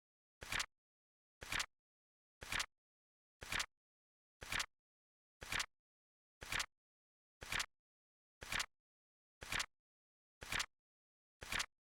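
Flip clock timer's flip sound effect: a short dry clack once every second, evenly spaced and identical each time, with silence between.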